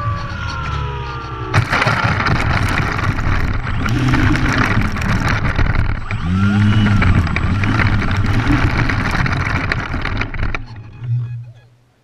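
An RC model plane's electric motor whines, dropping in pitch while the plane spins down. About a second and a half in there is a sudden hit into the grass, followed by several seconds of loud, rough noise. The sound fades out just before the end.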